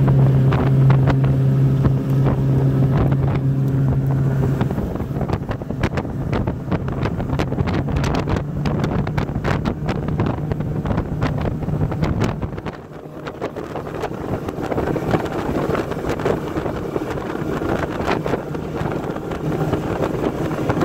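1989 Hurricane deck boat underway: its engine runs with a steady hum that weakens after about four seconds, under a heavy rush of wind buffeting the microphone and water noise. The rush briefly eases about two-thirds of the way through.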